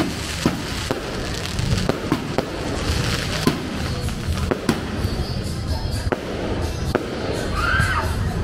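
Scattered sharp pops, one or two a second at irregular spacing, over music with a heavy bass.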